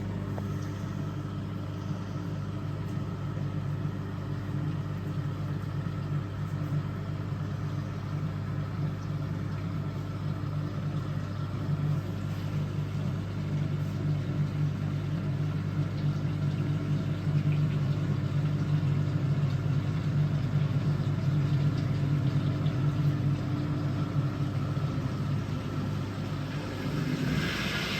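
Vulcan Dishlex Mk8 dishwasher running its pre-wash: the wash pump motor hums steadily while water swishes around under the spray arms, which sounds really powerful. It grows somewhat louder about halfway through, with a burst of brighter spray noise near the end.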